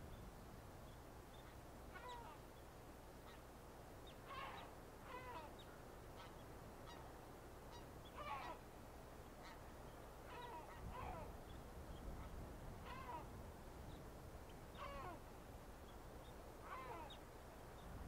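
A bird calling over and over, faint and distant: each call is a short note that falls sharply in pitch, repeated about every one to two seconds.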